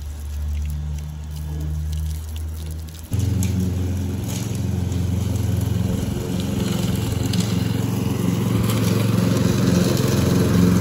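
Hose water spraying against bus windows over a low engine hum for about three seconds, then an abrupt cut to a gas push lawn mower's engine running steadily and close.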